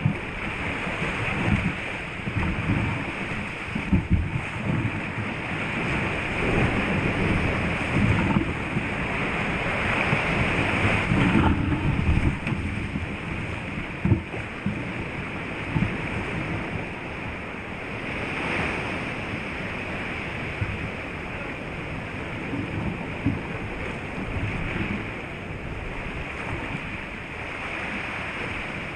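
Ocean surf surging and breaking around a sea kayak among rocks: a steady rush of white water with a few sudden louder splashes, and wind rumbling on the microphone.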